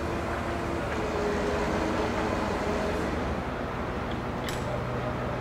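A crane's engine running steadily while its hook is lowered. One sharp metallic click comes about four and a half seconds in.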